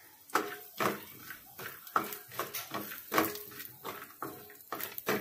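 Wooden spatula scraping and knocking against a small metal kadhai while stirring coconut slices and ginger roasting in a little oil: a run of irregular strokes, about two a second.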